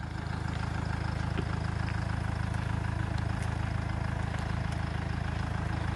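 Hyundai Terracan SUV's engine running steadily at low speed as the lifted truck creeps forward off-road, picking up slightly about half a second in.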